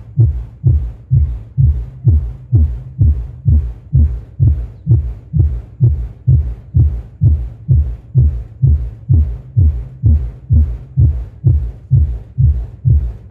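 GM15 1000-watt subwoofer in a scoop box playing a bass test track: loud, evenly repeating deep thumps, about two and a half a second, each dropping quickly in pitch.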